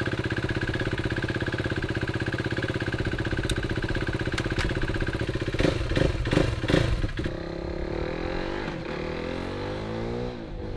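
KTM 390 Duke's single-cylinder engine idling steadily, with a couple of light clicks, then revved in several quick throttle blips about six to seven seconds in, after which its pitch sweeps up and down.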